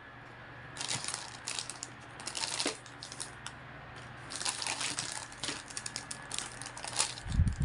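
Crinkling and rustling of plastic wrapping and foam-covered hoop sections in several short bursts as the pieces of a segmented hula hoop are handled and pushed together.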